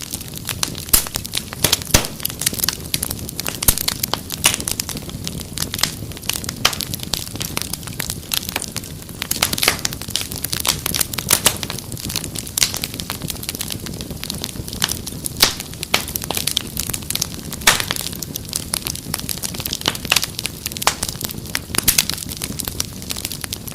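Wood fire crackling, with irregular sharp pops and snaps over a low steady rumble of burning.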